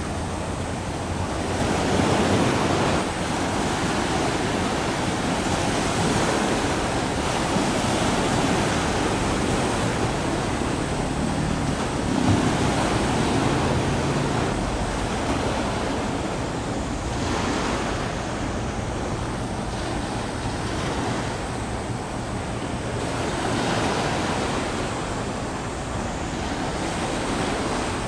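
Wind rushing over the microphone together with the wash of waves, a steady roar of noise that swells and eases every few seconds.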